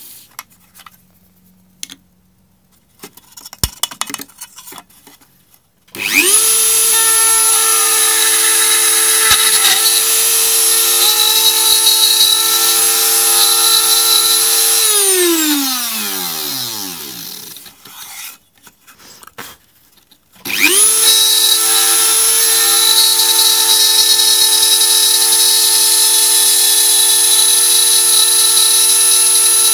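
Dremel rotary tool with a routing bit cutting a PCB: it spins up to full speed in under a second and runs with a steady high whine for about nine seconds, then winds down. After a few seconds of small clicks it spins up again and keeps running.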